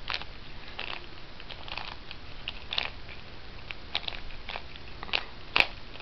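Plastic Rubik's Cube being twisted by hand, its layers giving a string of irregular clicks and clacks, with one sharper clack near the end. The cube is old and does not turn smoothly.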